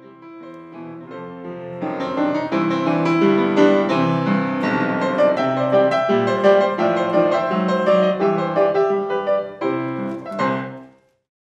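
Piano music that swells up over the first couple of seconds into a busy run of notes, ending on a final chord that dies away near the end.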